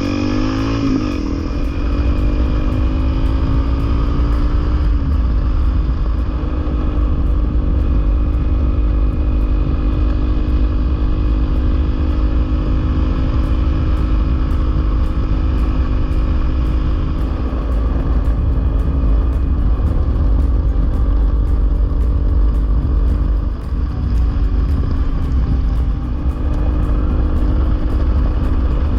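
Honda CRF250L's single-cylinder engine under way, climbing in pitch as it accelerates over the first couple of seconds, then running at a steady cruise with brief easings of the throttle. Wind buffets the microphone underneath.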